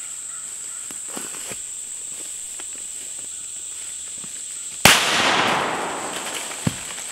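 A single shotgun shot about three quarters of the way through, a sudden crack that echoes away over a second and a half, taking down a fox squirrel in the treetops. Under it runs a steady high-pitched insect drone, with a small sharp click near the end.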